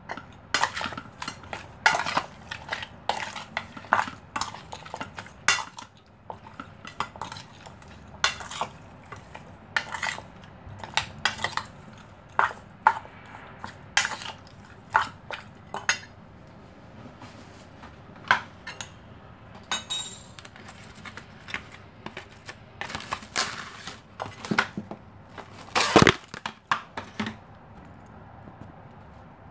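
A metal spoon clinking and scraping against a stainless steel bowl in quick irregular strokes while stirring raw fish pieces with cornstarch, with one louder knock near the end.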